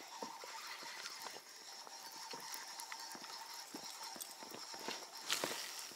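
Small waves slapping against the side of a boat in quick, irregular knocks, with a brief louder rush about five seconds in.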